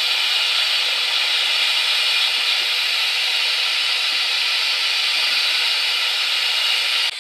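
Steady hiss of compressed air leaking out past the shaft seal at the end of a Coats 5030A tire changer's rim clamp air cylinder, with the wet shaft bubbling at the leak; the owner takes it for a worn seal. The hiss drops sharply near the end.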